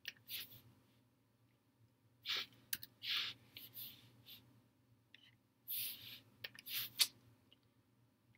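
Stylus tapping and stroking on a tablet screen: a handful of short, faint scratchy strokes with a few sharp clicks between them.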